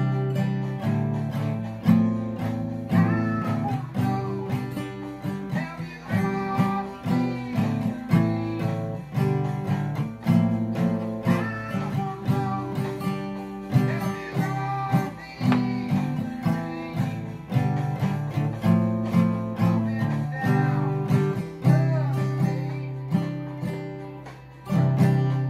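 Steel-string acoustic guitar strummed with a nickel used as a pick, in steady rhythmic chords. A man's voice sings along at times.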